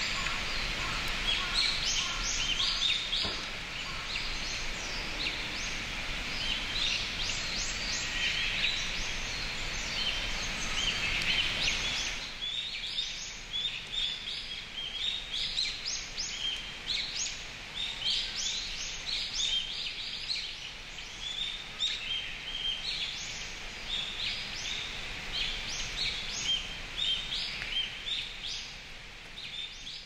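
Wild forest birds calling and singing: many short, overlapping chirps and call notes over a steady background hiss, which quietens suddenly about twelve seconds in.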